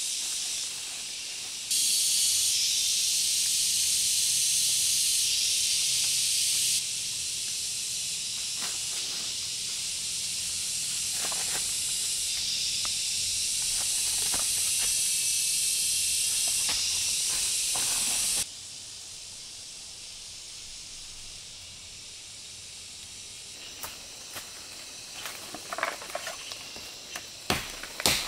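Steady high hiss of forest insects, starting and stopping abruptly. Near the end, a blade chops into a thin sapling's trunk in sharp strokes about two a second.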